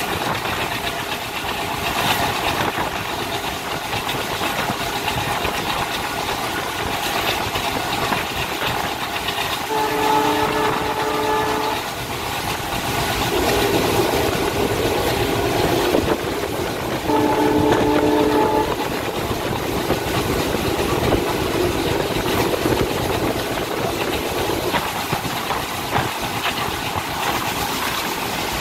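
Continuous running noise of a moving passenger train heard from inside its luggage van with the door open: wheels on the rails and the van rattling. The diesel locomotive's horn sounds twice, each a held chord of about two seconds, about ten and seventeen seconds in.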